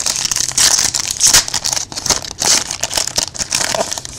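Foil wrapper of a football trading-card pack being torn open and crinkled in the hands: a dense run of crackling rustles that thins out near the end.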